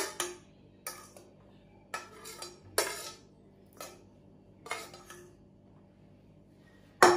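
A metal fork scraping and knocking against the inside of a frying pan in short separate strokes, about one a second, then a louder clatter near the end.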